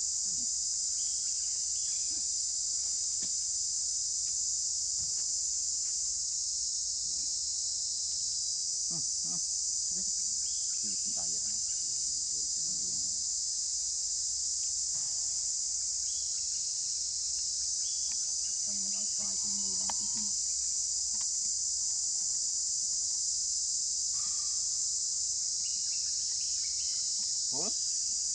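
Steady, high-pitched drone of an insect chorus, unbroken throughout, with a few faint brief sounds beneath it.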